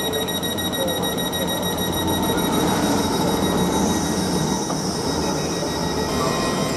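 LNER Azuma train standing at the platform with its doors open, running steadily: a continuous rumble with steady high-pitched whines over it.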